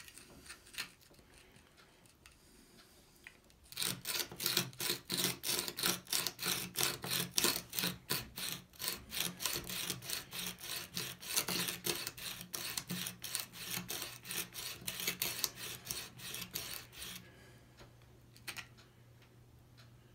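Coarse 100-grit stone on an MPower FastTrack Mk2 sharpener rubbed quickly back and forth over an old steel chisel's bevel, a rasping scrape with each stroke. The strokes start about four seconds in and stop about four seconds before the end.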